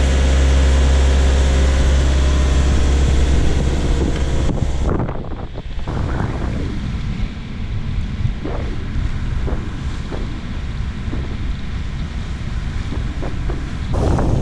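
A steady low drone of the sailboat's engine, which gives way suddenly about five seconds in to wind buffeting the microphone and water rushing along the hull of the wooden cutter under sail, in uneven gusts.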